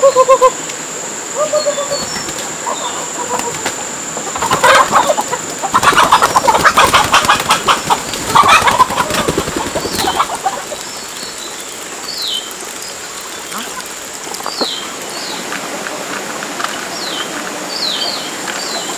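Chickens clucking, then a loud flurry of wing flapping lasting several seconds. Short high descending chirps repeat through the second half, over a steady high whine.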